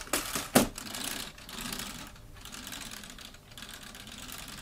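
Plastic LEGO Technic parts clicking and clattering as the model sports car is handled and turned over. There are a few sharp clicks in the first second, then a softer steady rattle.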